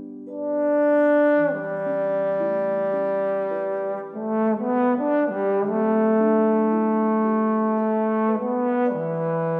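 Trombone playing a slow melody of long held notes, sliding between some of them, with harp accompaniment.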